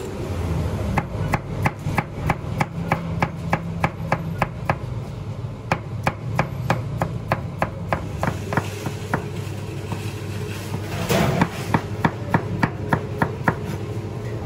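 A knife chopping on a board: runs of sharp, even strokes at about four a second, broken by short pauses. About eleven seconds in there is a brief, louder rush of noise, over a steady low background hum.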